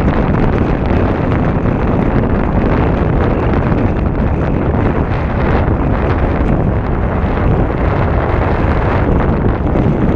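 Wind buffeting the microphone: a loud, steady rumble of wind noise with no break.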